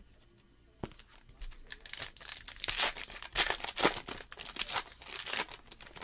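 Foil wrapper of a trading-card pack being torn open and crinkled by hand. After a quiet first second, a dense run of crackling tears starts about two seconds in and dies down near the end.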